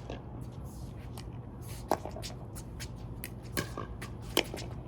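Pickleball rally: sharp pops of paddles striking the plastic ball, about three hits roughly a second apart, over a steady low hum.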